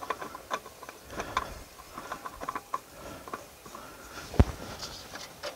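Small clicks and taps of a new hydraulic filter being spun onto its threaded mount by a gloved hand under a compact tractor, with one sharper knock about four and a half seconds in.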